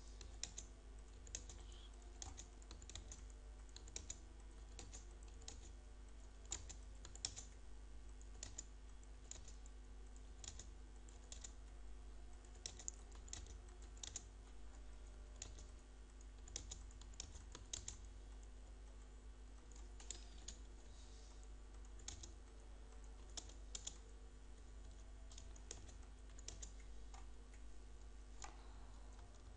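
Faint typing on a computer keyboard: irregular, scattered keystrokes over a steady low hum.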